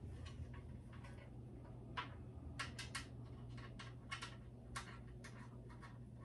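Scattered light clicks and ticks, about a dozen at irregular intervals, from handling a Spider Farmer SF300 LED grow light panel and its hanging hardware, over a steady low hum.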